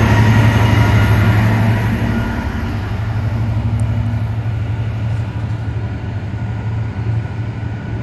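GB Railfreight Class 66 diesel locomotive passing close by, its two-stroke V12 engine giving a loud low drone that drops back after about two seconds as the locomotive goes by. The container wagons of the freight train then keep rumbling steadily past.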